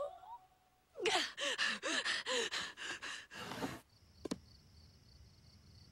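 A cartoon character panting fast and hard, about five breathy voiced gasps a second for nearly three seconds. Then a single sharp click, and a faint steady high chirring of crickets.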